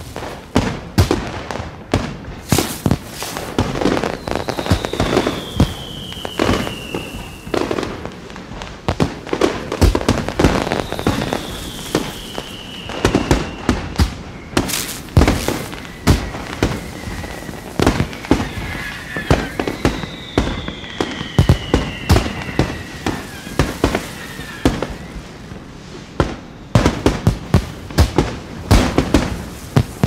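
Aerial fireworks display: a steady barrage of sharp bangs from bursting shells, with three long whistles falling in pitch among them. The bangs come thickest near the end.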